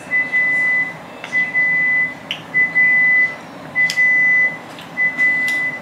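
Electronic beeper sounding five long, even beeps at one steady high pitch, a little over a second apart, like a household appliance's alert.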